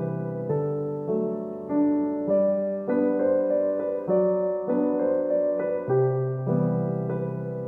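Background music on a piano-like keyboard, with notes and chords struck about once or twice a second, each fading away.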